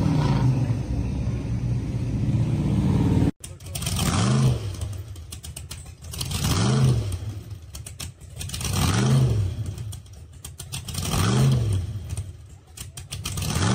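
Classic vehicles cruising past with a low engine rumble, then a supercharged hot-rod engine is blipped repeatedly, five revs about two seconds apart, each rising and falling back to idle.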